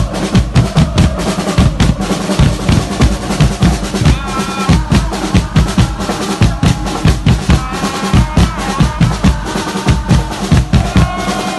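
Football supporters' drums beating a fast, steady rhythm, with the crowd chanting along from about four seconds in.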